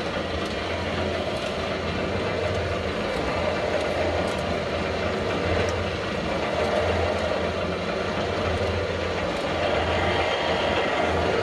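A 2 m³ electric vertical-auger feed mixer running, its auger churning chopped straw in the tub. It gives a steady machine drone with a low hum.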